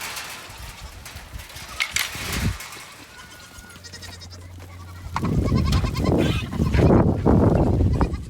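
Goats bleating, several loud calls close together over the last three seconds, after a few seconds of only light clatter.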